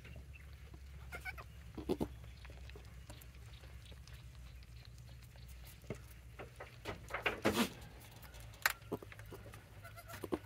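A mother goat and her newborn kid making short, soft goat sounds, with a louder cluster of sounds about seven seconds in, over a steady low hum.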